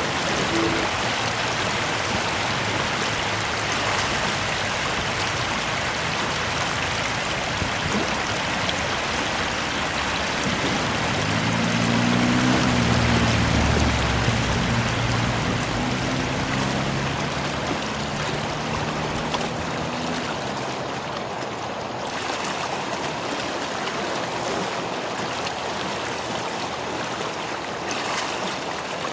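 River water rushing steadily, with a low hum that comes in for several seconds in the middle.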